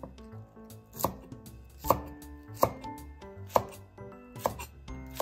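Chef's knife slicing a white Japanese leek on a wooden cutting board: six sharp knocks of the blade on the board, a little under a second apart.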